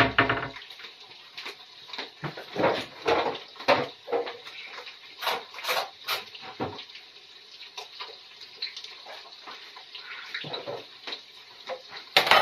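Dishes and utensils clinking and knocking as a breakfast tray is laid, over a steady sizzle of eggs frying in oil in a pan. A bowl is set down on the enamel tray with a knock near the end.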